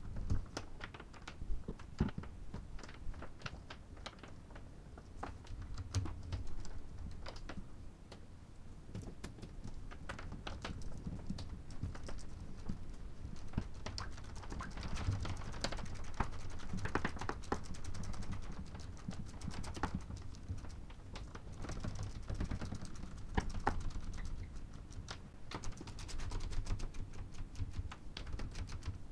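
Hand-cleaning an engine's metal valve cover with a sponge and cloth: irregular small clicks and taps with soft rubbing and scuffing.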